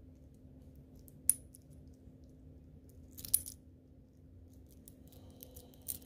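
Sharp metallic clinks of a stainless steel watch bracelet and case being handled: two loud ones about a second and three seconds in, then a run of small clicks near the end. A faint steady high tone starts about five seconds in.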